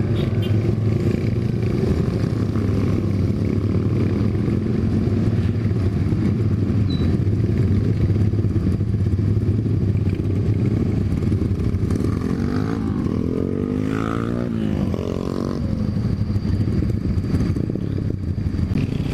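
Motorcycle engine running steadily. About two-thirds of the way through, its note rises and falls as the throttle is worked.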